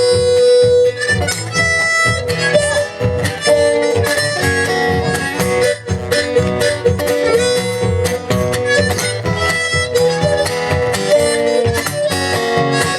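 Live acoustic band playing an instrumental break: a harmonica solo of sustained, bending notes over strummed acoustic guitar.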